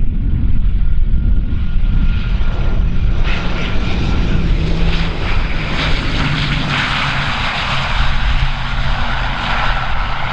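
Airliner engines running loud: a steady deep rumble, with a rushing hiss that builds over the first several seconds and then holds.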